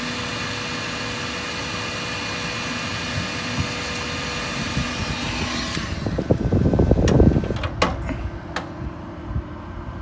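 Cheap Harbor Freight heat gun running with a steady whine, shut off about six seconds in. Then a loud low rumble with a few clicks, leaving the quieter hum of two replacement RV fridge cooling fans running.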